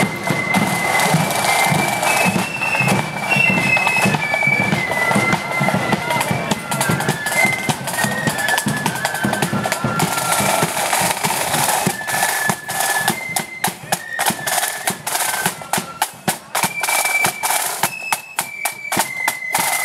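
Marching flute band playing a high, stepping melody on flutes with side drums beating. Over the second half the crisp snare-drum strokes come through much more strongly as the drums draw near.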